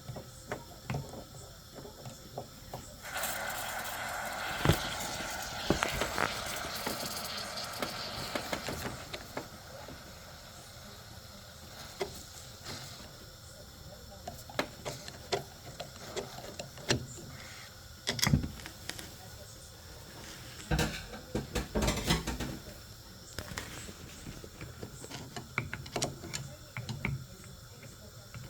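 Clicks, knocks and rattles of hands and tools working on a gas combi boiler, with a hiss that starts about three seconds in and lasts about six seconds.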